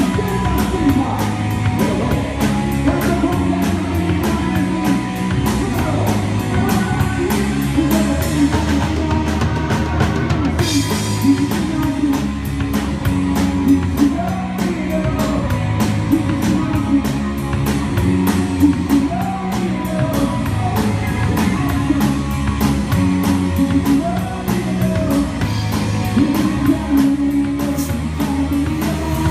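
Live rock band playing drums and guitar with a steady beat, heard through the band's own stage monitor mix.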